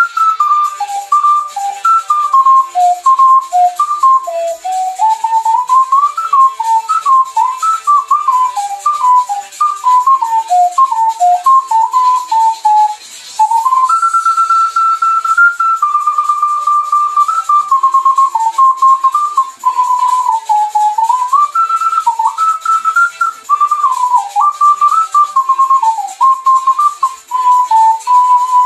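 Ocarina playing a melody in a pure, whistle-like tone: a quick run of short notes for the first half, then after a brief break longer held notes, ending on a long held note. Faint accompaniment sits low underneath.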